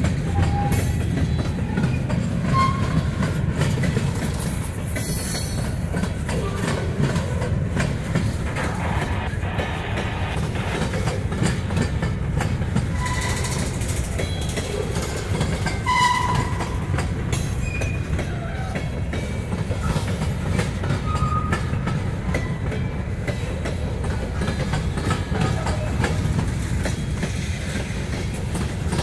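Freight train of covered hopper cars rolling past close by: a steady rumble with the clickety-clack of wheels over the rail joints, and now and then a short high squeak from the wheels.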